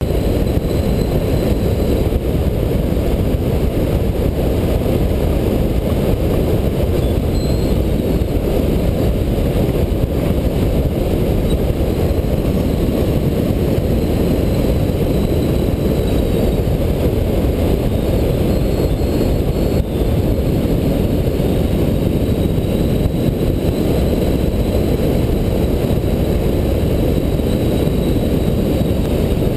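Loud, steady rush of airflow over the microphone of a camera mounted on an A.I.R. Atos VR rigid-wing hang glider in engineless gliding flight. A deep, even wind noise with no engine in it, though it resembles one.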